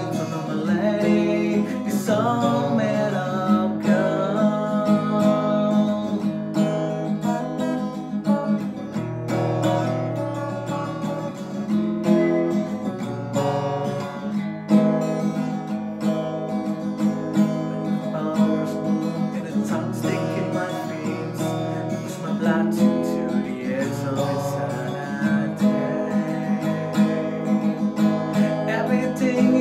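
Cort acoustic guitar strummed in steady chords, its strings old and corroded, with a man singing along in a pop-punk ballad; the singing drops out for a stretch in the middle and comes back near the end.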